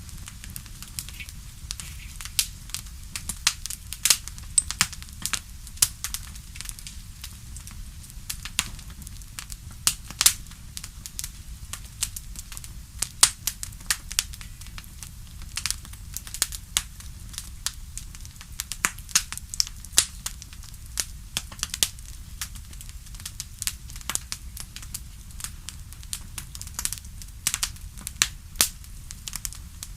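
Wood fire crackling: irregular sharp pops and snaps, several a second, over a steady low rumble.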